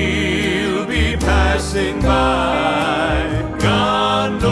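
Country-gospel song playing, with held sung notes over instrumental backing.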